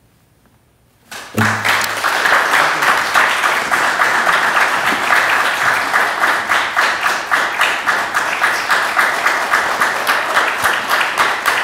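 Audience applause after a classical guitar piece: about a second of quiet, then clapping breaks out all at once and carries on steadily.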